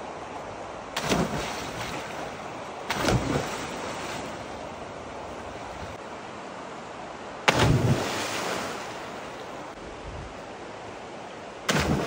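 Bodies plunging into a river pool from a rock ledge: a few sudden splashes, the loudest about seven and a half seconds in and another just before the end, over a steady rush of water.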